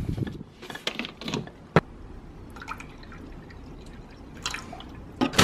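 Water poured from a plastic bottle into a birdcage water dish, trickling and dripping, with scattered sharp clicks and knocks of handling; the sharpest click comes a little under two seconds in.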